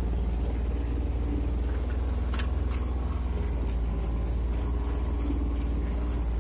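Farm utility vehicle's engine running steadily with a deep drone as it drives across a grass field, with a few light clicks and rattles from the cab.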